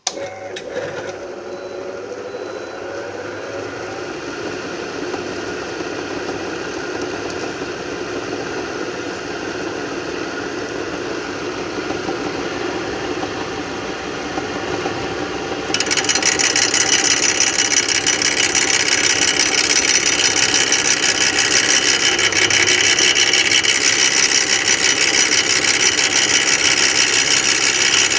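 Homemade lathe switched on and running, its motor and four-jaw chuck spinning with a steady mechanical hum and rattle that builds slowly. About sixteen seconds in, the sound suddenly becomes louder and harsher and stays that way.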